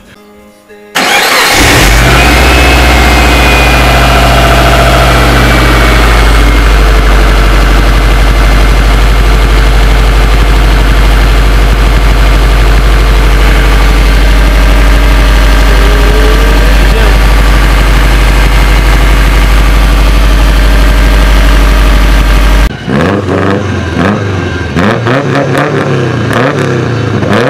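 Turbocharged Subaru flat-four engine starting and then idling, close to the engine bay. This is the first start after a new AC idler pulley and belts were fitted. The start comes suddenly about a second in, and the revs settle over the next few seconds into a steady idle. About 23 s in it cuts off and gives way to a different sound that rises and falls in pitch.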